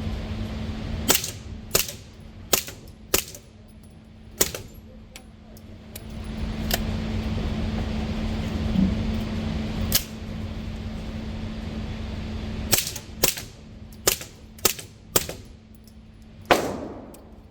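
Suppressed firearm fired with subsonic ammunition through a SilencerCo suppressor: sharp, muted shots, a quick string of about five, a single shot, then another string of about six. A steady low hum sits underneath.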